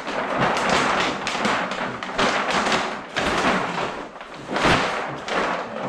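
Vinyl car-wrap film being handled and crumpled: a crackling rustle that swells and fades unevenly, with a few dull thumps.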